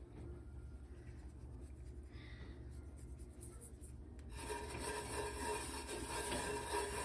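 Faint rubbing of hands pressing and spreading pizza dough in an oiled cast iron pan, over a low hum. About four seconds in, a louder, brighter sound with several steady tones joins it.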